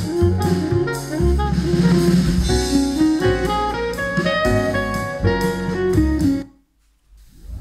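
Jazz with saxophone and drums, played back through an Aiwa NSX-V30 mini hi-fi system in a sound test. The music cuts off about six and a half seconds in, and after a short gap the next track begins fading in near the end.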